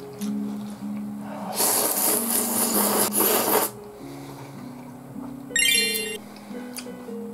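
Soba noodles in hot broth slurped loudly with chopsticks for about two seconds, over soft background music. A brief high squeaky whistle sounds near the end.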